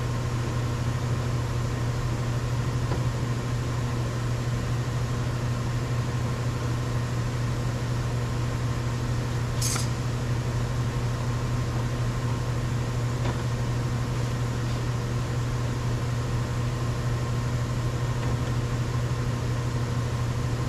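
Steady low hum with a constant tone, with one short, sharp click about halfway through and a fainter tick a few seconds later.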